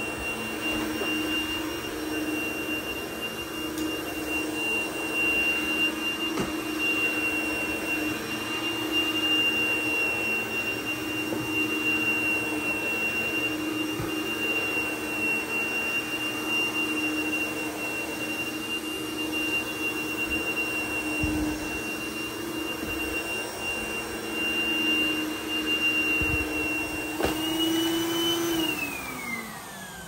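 Dyson DC01 upright vacuum cleaner running on plush carpet with a steady motor whine. Near the end there is a click, and the whine falls in pitch as the motor is switched off and winds down.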